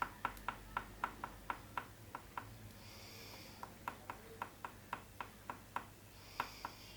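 Oil pastel tapping against paper in quick strokes: a run of sharp taps, about four a second, that pauses briefly in the middle and then resumes.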